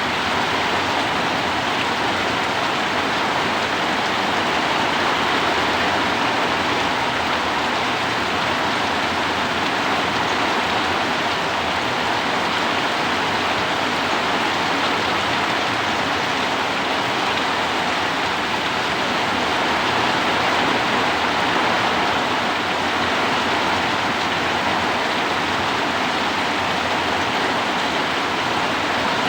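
Heavy rain falling steadily, an even unbroken rush.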